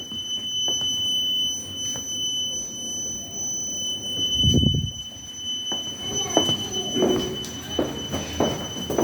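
Home alarm system's electronic sounder giving one continuous high-pitched tone, with a dull thump about halfway through and several short knocks near the end.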